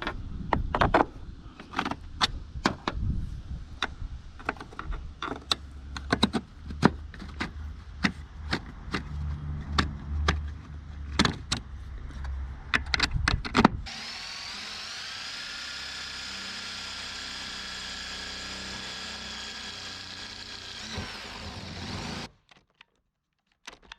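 Irregular clicks and knocks of tools and parts being handled, then a cordless drill spins up about 14 s in and runs at a steady pitch for about eight seconds before cutting off suddenly as its battery goes flat.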